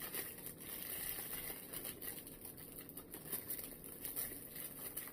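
Plastic packaging crinkling and rustling as it is handled, with small irregular crackles throughout.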